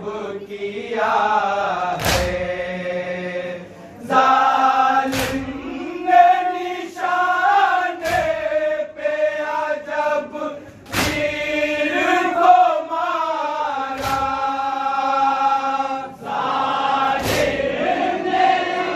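Group of men chanting a Muharram nauha together, with a sharp collective slap of matam (hands striking chests) about every three seconds.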